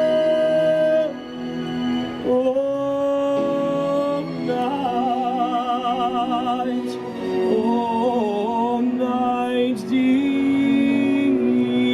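Christmas carol sung live by a small group of voices: long held notes with vibrato, several voices in harmony, moving to a new chord every few seconds.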